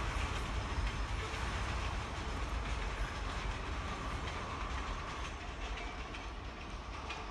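Housatonic Railroad train NX13 rolling past on the rails, a steady rumble of wheels and cars that slowly gets quieter as the train moves away.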